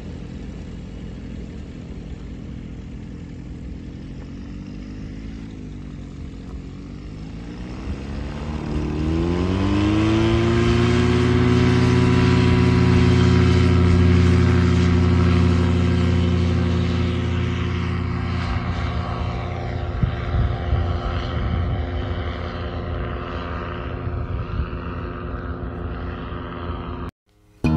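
Ultralight trike's engine and propeller at a low idle, wavering slightly, then throttled up about eight seconds in and held at high, steady power. The power eases a little later on, and the sound cuts off suddenly near the end.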